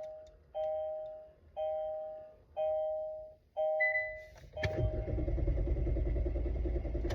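Kia Forte's key-in warning chime sounding five times, about once a second, then the starter cranking the engine for about two and a half seconds without it catching. This is a no-start that the owner blames on a decorative ring fitted around the ignition.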